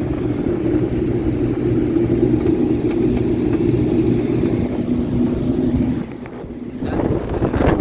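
A 25-ton Trane Voyager packaged rooftop unit running with its compressor on, a steady hum with low tones. The sound dips about six seconds in, and a brief noisy burst comes near the end.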